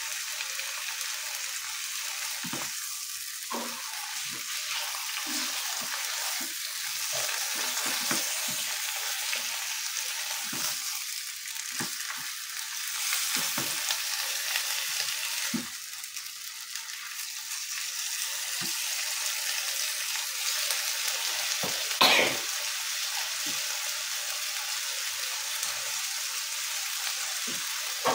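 Bean sprouts, greens and tofu sizzling in oil in a nonstick wok as they are stir-fried with a silicone spatula: a steady hiss broken by scattered soft knocks and scrapes, with one louder brief scrape about three-quarters of the way through.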